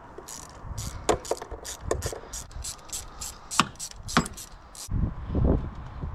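Ratchet clicking in an even run of about four clicks a second as small Torx screws are undone, with a few sharper metallic clicks. A dull low rumble of handling comes about five seconds in.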